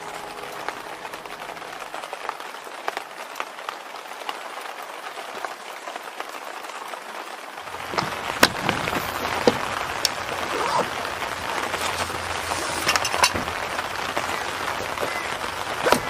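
Steady rain with scattered drops ticking. About eight seconds in it becomes louder and closer, with sharp clicks and knocks as hands handle gear at a rain-wet vehicle.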